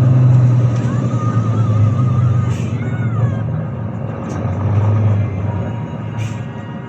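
Volvo 9800 coach's D13C inline-six diesel engine running with a deep steady rumble that fades somewhat toward the end. A few short sharp clicks come through over it.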